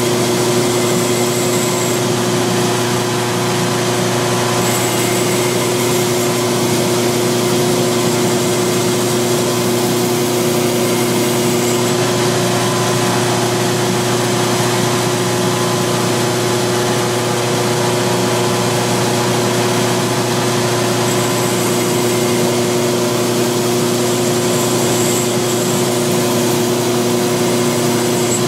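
Belt grinder running steadily with a coarse 60-grit belt while a steel adze bevel is hollow ground against its large contact wheel, throwing sparks. The grinding contact comes and goes, with a pause around the middle to check the edge while the motor and belt keep running.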